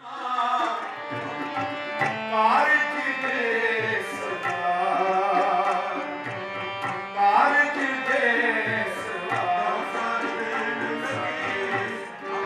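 Music led by tabla, with a sustained melody over it and rising slides about two and a half and about seven seconds in.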